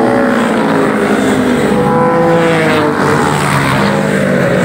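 Motorcycle and other vehicle engines passing at speed on the road, several engine notes overlapping and sliding up and down in pitch as they go by.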